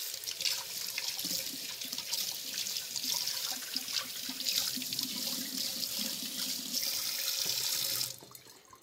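Kitchen faucet running, its stream splashing over a pasta server held under it and onto the hand; the water cuts off about eight seconds in.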